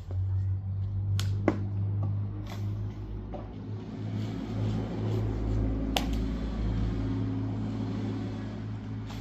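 An engine running steadily at low speed, with a few sharp knocks or snaps over it, the loudest about six seconds in.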